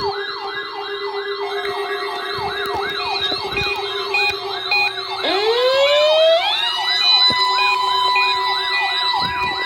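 Layered sirens: an electronic siren wailing up and down about twice a second over a steady hum. About five seconds in, a second siren winds up from a low pitch and settles into a steady high tone.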